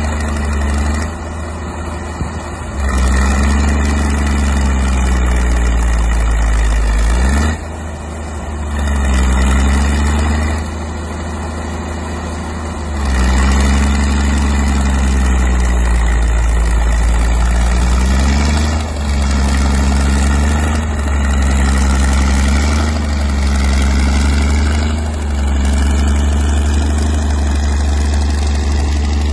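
Crawler dozer engine working under load, its pitch sagging and picking back up several times as it is throttled up and eased off, louder in stretches.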